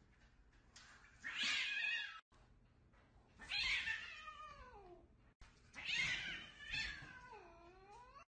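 A cat yowling three times in long, drawn-out meows. The second call slides down in pitch; the last dips low and then rises again.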